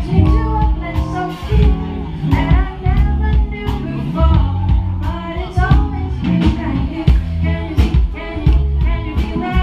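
A live band playing a bluesy song: electric guitar and drum kit keeping a steady beat under a harmonica playing the melody into a microphone.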